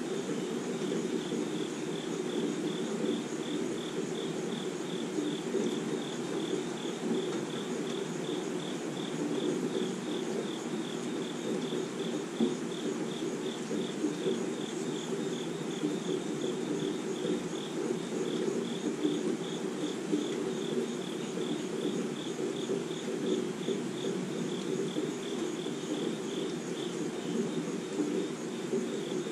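Steady rainfall with an insect chirping over it in a fast, even, unbroken pulse, high-pitched and continuous.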